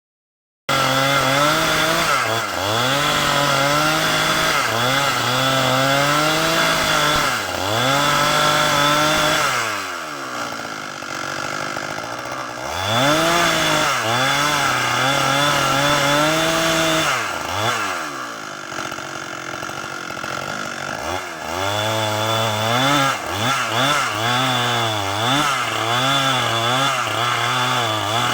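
Holzfforma two-stroke chainsaw ripping a sengon log lengthwise at high revs. The engine pitch repeatedly sags and recovers as the chain bites into the wood, with two quieter, lower-revving stretches near the middle. The sound starts abruptly under a second in.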